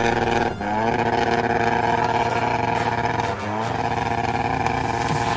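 Off-road 4x4's engine held at high revs, dropping off briefly and climbing straight back up about half a second in and again about three and a half seconds in.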